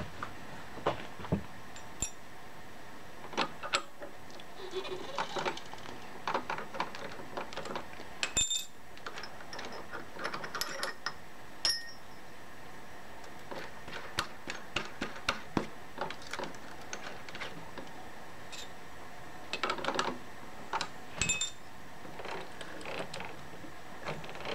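Small steel tools and parts clicking and clinking as they are handled during a bit change on a milling machine's drill chuck, over a steady background hum. One sharper metallic knock rings out about eight seconds in.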